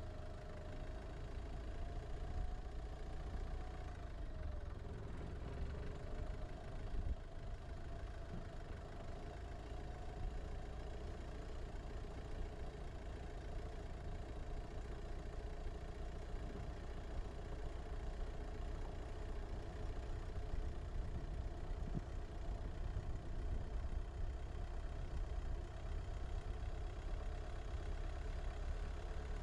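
A car driving slowly along a dirt road: a steady low rumble of engine and tyres, with a faint whine that rises and falls slightly during the first ten seconds.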